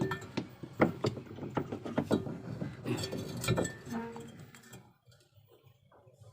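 Irregular clicks and light metallic clatter of washing machine parts being handled while a replacement drive belt is fitted, stopping about five seconds in.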